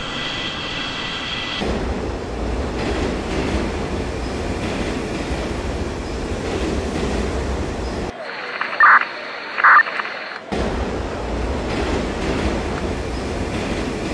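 Steady low rumbling noise. About eight seconds in it drops out for two seconds, and two short, loud high tones sound in the gap.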